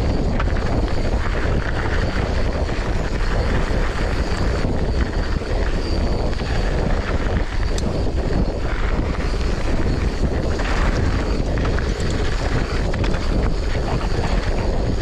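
Wind rushing over a chest-mounted action camera's microphone while a hardtail mountain bike rolls fast down a dirt trail, with tyre noise and a few light clicks and knocks.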